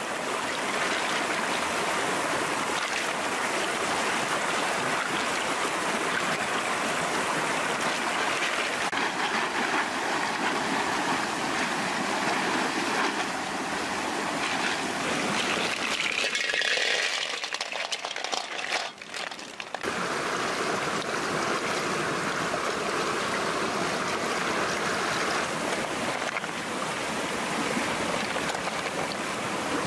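Fast, shallow stream rushing over rocks, a steady rush of water that thins out briefly a little past the middle.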